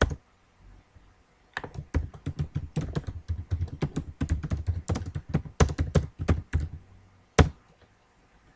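Computer keyboard typing: a fast run of key clicks lasting about five seconds, then a single louder keystroke about seven seconds in.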